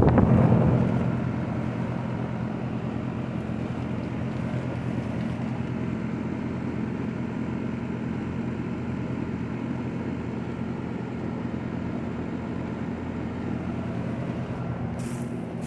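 A machine running with a steady low hum of several held tones. Louder wind rumble on the microphone dies away in the first second or so.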